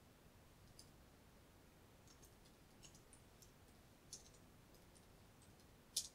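Faint computer keyboard keys tapped one after another as a command is typed, scattered clicks with a single louder keystroke near the end.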